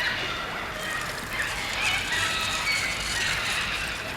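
Steady outdoor background noise with a few faint bird calls.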